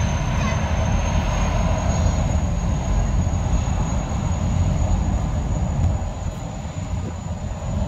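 Boeing 929 Jetfoil's gas-turbine engines running with a steady high whine as the hydrofoil ferry heads out of the harbour, over a strong low rumble.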